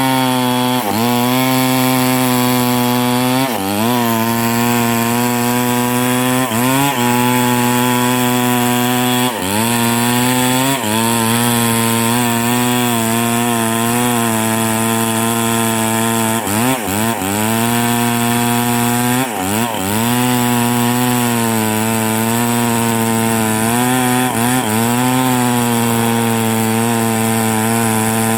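Small two-stroke chainsaw running at high speed. Its pitch sags briefly and climbs back again every few seconds.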